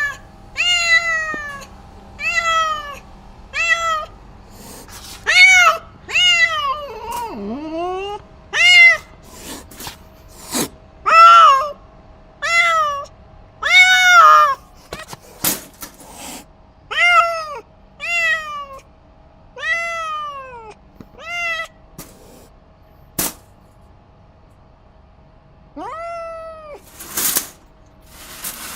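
Domestic cat meowing loudly over and over: short calls that rise and fall in pitch, about one a second, with a pause near the end before a last meow. A few sharp clicks fall between the calls.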